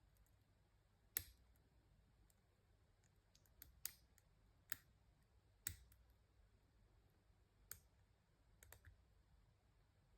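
Faint, scattered clicks of a half diamond lock pick working the pins of a six-pin ERA euro cylinder, a handful of sharp ticks at irregular intervals.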